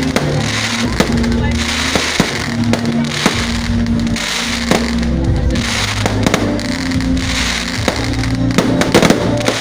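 Fireworks going off: a steady run of sharp bangs and crackling pops, with music playing underneath in long held notes.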